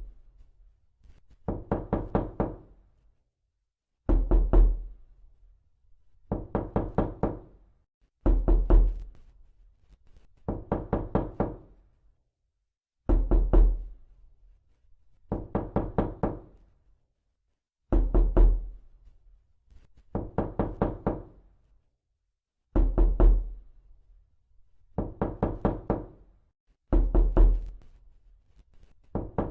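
Knocking in quick groups of four or five raps, a group about every two seconds. Every other group has a heavier, deeper thud.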